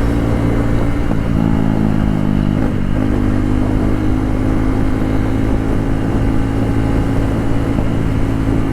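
KTM Duke 390's single-cylinder engine running loud on the move with its stock exhaust part removed, held at a fairly steady pitch with small shifts about one and three seconds in.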